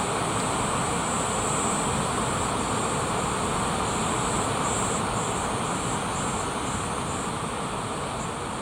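Waterfall pouring, a steady rushing hiss. Above it is a high, thin insect buzz that pulses several times in the second half. The rush eases slightly near the end.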